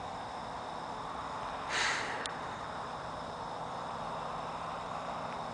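Night insects, crickets, chirping steadily over a soft hiss of outdoor background, with a brief breathy rush about two seconds in. No thunder is heard.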